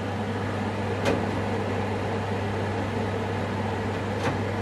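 Kitchen range hood extractor fan running steadily on its lowest setting, a constant low hum with air rush. Two short clicks come about a second in and near the end.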